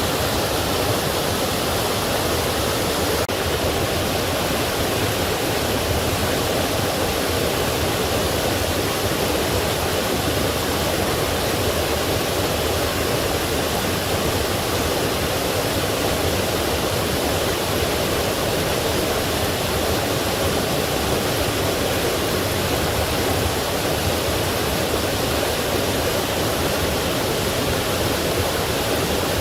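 Forest stream flowing: a steady, unbroken rush of water.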